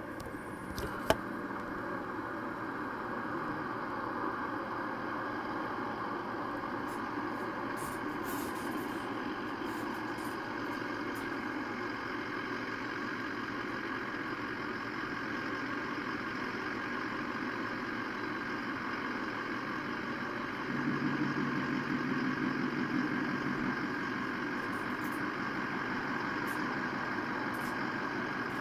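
Steady engine rumble of idling vehicles, heard through a computer speaker, with a sharp click about a second in and a louder, deeper engine note for a few seconds near the end.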